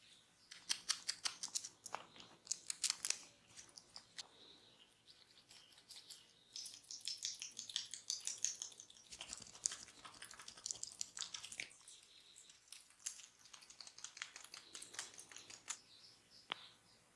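Close-miked crackling and clicking of a barber's fingers massaging, coming in irregular clusters with short pauses between them.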